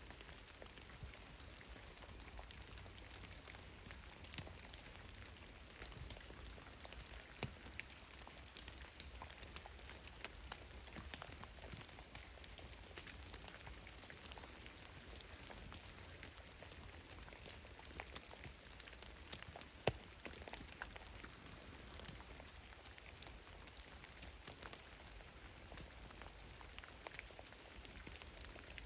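Meltwater drops falling from melting snow in the trees, pattering irregularly onto snow and forest floor, a scatter of small ticks of varying strength with one sharper drop about twenty seconds in.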